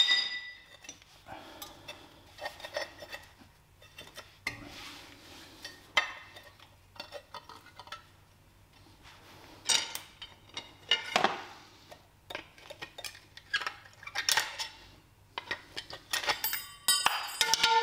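Metal clinks, knocks and scrapes from a Gen 1 BMW Mini's brake caliper and carrier being worked apart by hand, with a pry bar levering on the caliper. The clanks ring, and the busiest run of them comes near the end.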